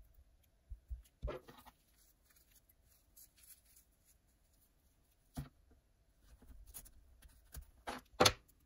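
Small handling noises at a fly-tying vise: fingers rustling the hair and fur of the fly, with a few sharp clicks and taps. One comes about a second in, one a little past five seconds, and a cluster near the end holds the loudest.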